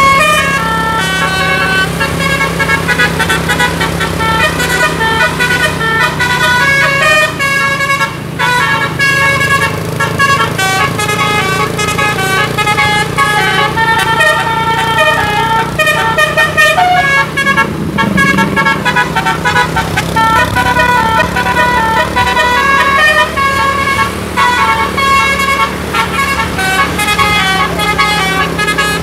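Bus telolet musical air horn from a DAV module playing a long, fast melody of many short notes that change several times a second, over a steady low hum.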